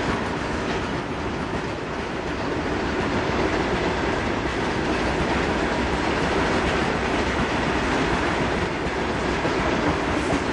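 A long rake of Indian Railways BOXN open freight wagons rolling past at speed, a steady rumble and clatter of steel wheels on the rails that swells slightly after a few seconds.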